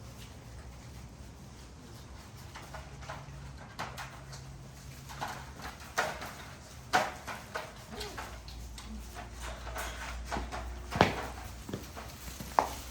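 XL pit bull puppies moving about and playing: scattered taps and knocks of paws and bodies on the floor, with a few short squeaks, over a steady low hum.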